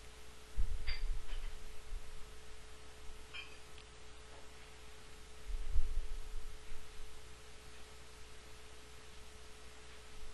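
Faint steady hum at one pitch, with two dull low thumps, about half a second in and a little past the middle, and a couple of faint clicks.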